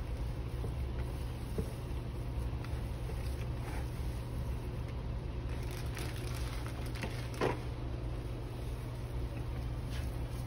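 Steady low mechanical hum, with scattered faint clicks and handling noises from food being mixed by hand, and one brief louder sound about seven and a half seconds in.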